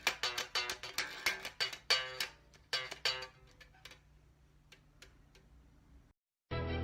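Quick plucked notes on a string instrument, several a second, each ringing briefly and dying away; the playing thins out and stops about three seconds in, leaving a few faint ticks. Near the end, after a moment of dead silence, a different, steadier piece of music begins.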